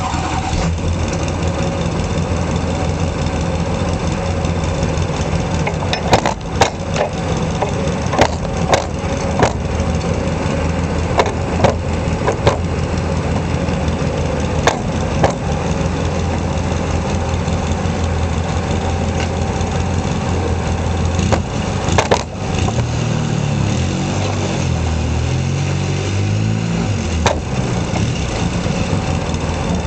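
Engine running at a steady low speed while a tow strap pulls a truck. Its pitch starts to waver about two-thirds of the way through as the throttle changes. Scattered sharp knocks and clicks come mostly in the first half and once more just before the pitch changes.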